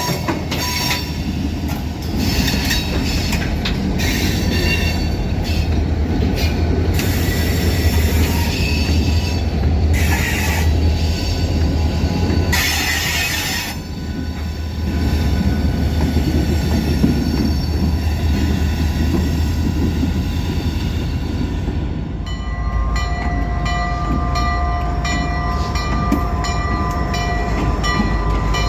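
Freight train cars rolling past with a steady low rumble and squealing wheels that give several thin, high, steady tones. About 22 seconds in the squeal changes to new, lower tones and a run of regular clicks begins.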